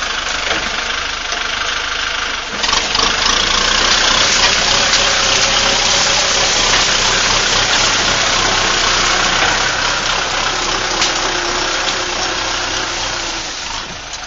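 Compact farm tractor's engine running hard as the tractor pushes soil and brush with a front dozer blade, getting louder about two and a half seconds in and easing off near the end.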